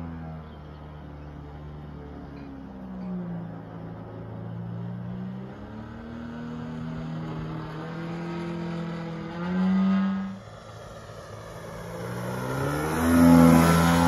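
The DA-100 100 cc two-stroke petrol engine of a large-scale RC Cessna running in flight, its pitch rising and falling. A brief loud surge about ten seconds in cuts off abruptly. The engine then grows loudest as the plane flies low past near the end.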